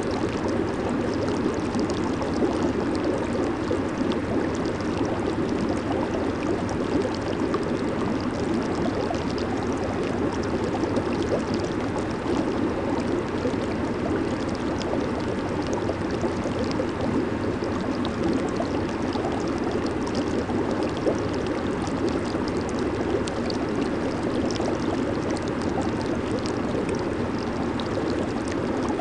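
Jacuzzi water churning and bubbling steadily from the jets, a continuous low rushing with fine bubble crackle above it.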